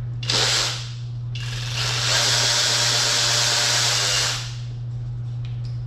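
Small cordless power tool running in two bursts, a short one and then one of about three seconds, as it spins fasteners off an engine's intake manifold; a steady low hum sits underneath.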